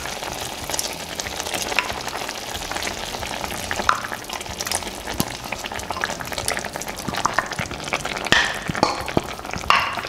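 Chicken pieces simmering in a pan of sauce over low heat: a steady bubbling with a fine crackle of small pops, as a peanut mixture is poured in from a glass bowl. A few louder taps near the end.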